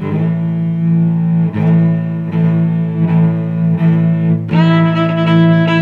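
Background music of slow, sustained low bowed-string notes that change every second or so, with higher string notes joining about three-quarters of the way through.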